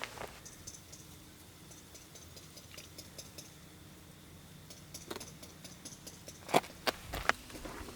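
Quiet handling noise: scattered light clicks and taps, then three sharp knocks in quick succession about six and a half seconds in.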